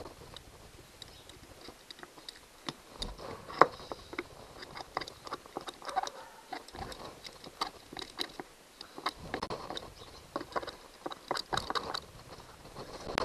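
A screwdriver tip scraping and tapping around inside the end cap of a Johnson 90 hp outboard's starter motor, cleaning out dirt. The sound is an irregular run of short scrapes and clicks, with a few louder taps.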